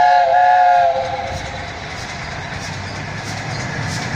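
Chime whistle of LNER A4 steam locomotive 60009, sounding a chord of several steady notes that wavers briefly and cuts off about a second in. The rumble of the approaching locomotive and its train then grows louder.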